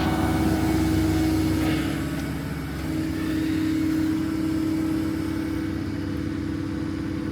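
Volvo EC160 excavator's diesel engine running steadily, with a constant hum.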